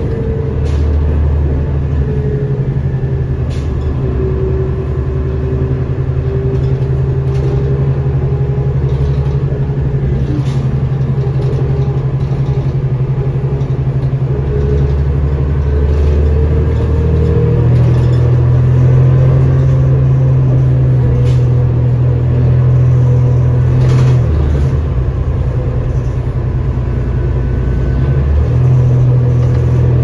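Inside the cabin of a 2007 New Flyer D40LFR transit bus: its Cummins ISL inline-six diesel and Allison B400R transmission running with a loud, steady low drone. A whine above it dips in pitch early on and rises again later, with faint rattles throughout.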